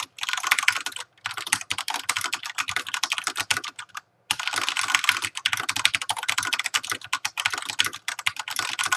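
Filco mechanical keyboard with Cherry MX Brown switches under fast touch typing: a dense run of keystrokes, broken by short pauses about a second in and about four seconds in.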